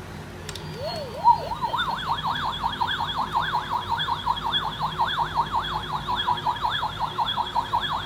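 A toy spaceship's electronic sound effect: a fast warbling, siren-like tone at about four to five warbles a second. It starts about a second in and keeps going near the end.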